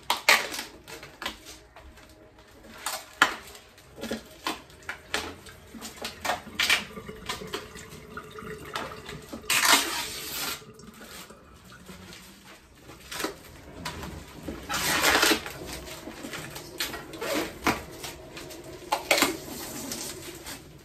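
Household items clicking, knocking and clattering as they are handled and taken apart during kitchen cleaning, with two hissing, rustling bursts of about a second each, around ten and fifteen seconds in.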